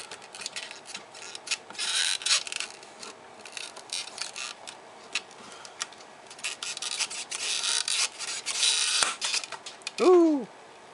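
Flat-blade screwdriver scraping and prying at a scored plastic snap-on clip on a projection-TV lens array: clicks and scratchy scraping, twice. A sharp snap near the end as the clip breaks free, followed by a short vocal exclamation.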